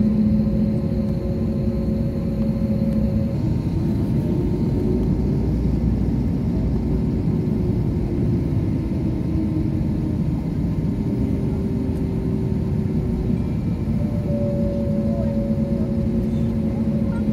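Jet airliner cabin noise with the engines at idle before take-off: a steady low rumble, with a few steady hums that shift in pitch now and then.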